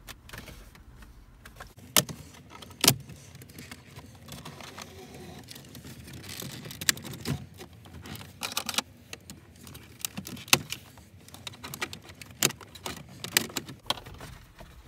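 The plastic center-stack trim bezel of a Ford F-150 clicking and rattling as it is worked loose by hand. Two sharp snaps of its retaining clips come about 2 and 3 seconds in, the loudest sounds, and more clicks and plastic knocks follow in the second half.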